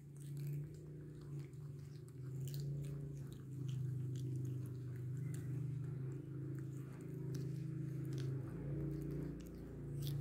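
Baby monkey biting and chewing cucumber, with short crunchy clicks scattered through, over a steady low hum.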